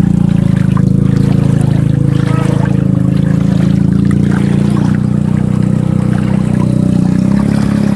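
Shallow water flowing down a concrete irrigation canal, rushing around the legs of people wading through it: a loud, steady low rumble of moving water.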